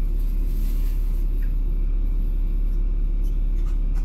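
LiAZ-5292.65 city bus under way, heard from the passenger cabin: a steady low rumble of engine and road noise.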